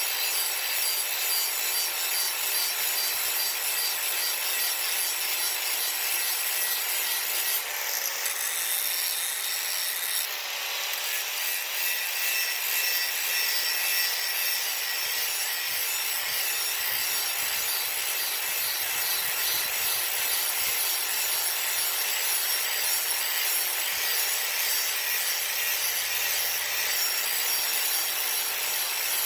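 Power grinder grinding the cutting edge of a steel lawn mower blade: a steady, continuous grinding hiss, with a brief change about eight to ten seconds in.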